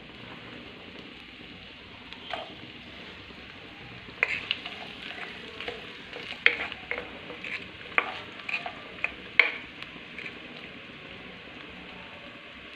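Sliced onions sizzling gently in hot oil in a non-stick kadai. From about four seconds in, a wooden spatula stirs them for several seconds, scraping and tapping against the pan.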